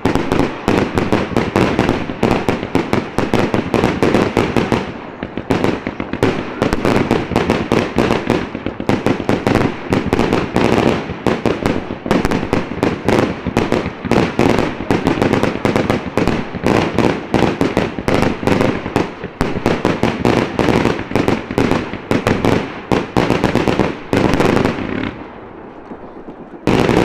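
Aerial fireworks shells bursting close by in a dense, rapid barrage of bangs that overlap one another. The barrage stops about 24 seconds in, and one last bang comes near the end.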